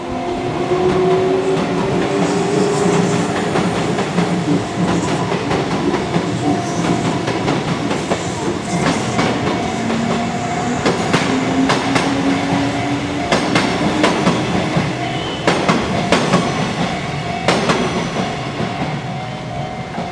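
Kintetsu electric train passing over a level crossing. Its motors whine, rising and falling in pitch, and in the second half the wheels clatter over the rail joints in quick runs of clicks. The crossing warning bell rings steadily.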